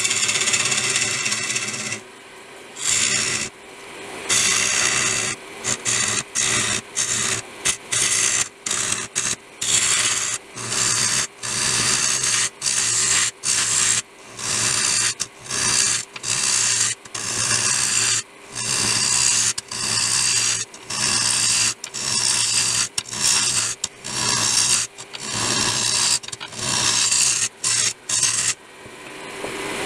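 A wood lathe hums steadily while a hollowing tool cuts inside a soft, loose wood blank, rough-turning it for drying. The cutting comes in many short scraping strokes, about one a second, with quick gaps between them. The wood crumbles under the tool more than it cuts.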